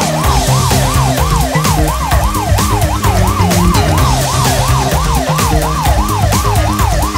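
Police siren in a fast yelp, its pitch sweeping up and down about three times a second without a break, over a low stepping bass line.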